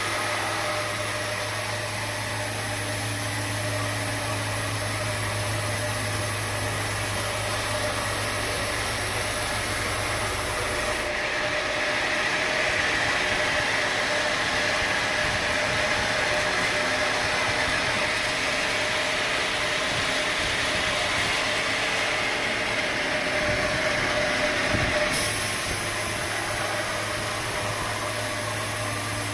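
Sawmill machinery running steadily, with a constant whine over a low engine hum. The low hum drops out abruptly about eleven seconds in and comes back near the end.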